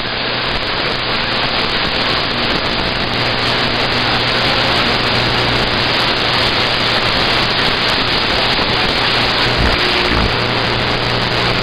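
Steady hiss of static from a CB radio receiver with the squelch open, between transmissions while the band is in skip, with a faint hum underneath.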